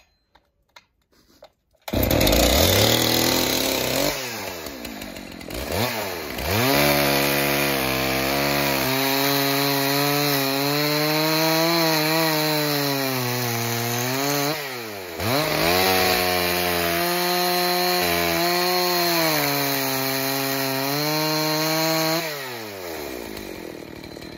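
Husqvarna 272XP 72cc two-stroke chainsaw running at high revs and cutting wood, starting about two seconds in. Its engine note sags under load and picks up again; the throttle is let off twice and the saw revs back up, then it falls away near the end. The saw is running on its original piston and cylinder, scored and sanded back.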